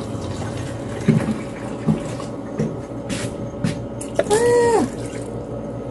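Water being poured from a measuring cup into an electric steamer pot, with a few light knocks of the cup. About four seconds in there is a short pitched sound that rises and then falls.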